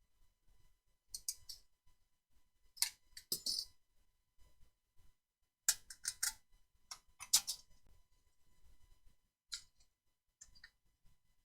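Snips cutting through a steel tape measure blade: short sharp snaps and clicks in several clusters a second or two apart.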